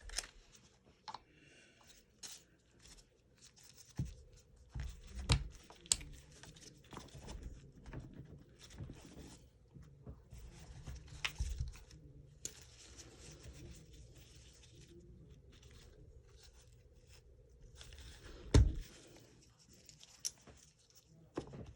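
Handling noise from disassembling a Magpul Masada ACR airsoft rifle: scattered clicks, knocks and scraping rustles of its parts being worked, with a few sharper knocks, the loudest near the end.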